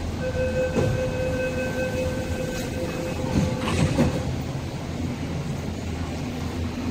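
A steady door-closing warning tone sounds for about three seconds while the train doors and platform screen doors slide shut, meeting with a few knocks about three and a half to four seconds in. Under it, the standing MTR East Rail Line train hums steadily.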